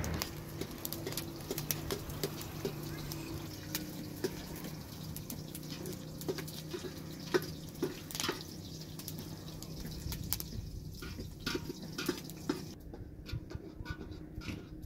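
Cooking at an open wood fire: irregular sharp crackles and pops from the burning wood, with light splashing and bubbling from a steaming pot. The crackling thins out near the end.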